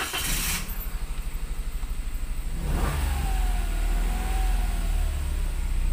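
Toyota Wigo's 1.0-litre three-cylinder engine just started, running with an even pulse. Its speed rises about three seconds in and settles back. With fresh spark plugs it idles smooth, its earlier rough misfiring cured.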